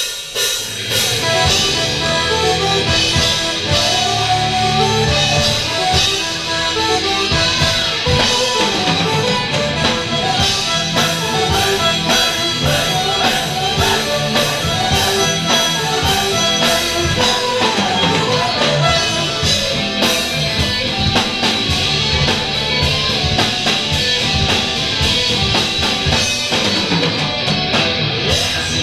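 Live folk-metal band playing an instrumental passage: electric guitars and a drum kit, with a violin and a flute carrying the melody.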